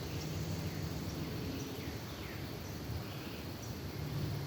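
Outdoor ambience: a low, steady hum with a few short, falling chirps scattered through it.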